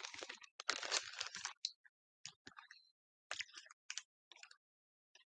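Plastic bags and packaging crinkling and rustling as they are handled, in short scattered bursts that are densest in the first second and a half and then come only now and then.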